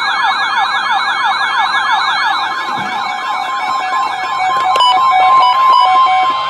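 A weather-radio alert siren: a fast warbling sweep repeating several times a second. About two and a half seconds in, NOAA Weather Radio's steady warning alarm tone joins it, along with short intermittent beeps. There is a sharp click near five seconds in.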